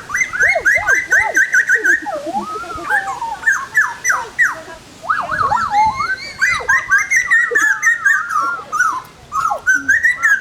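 White parrot calling in a rapid run of short, high chirping and whistling squawks that rise and fall in pitch, with only brief pauses.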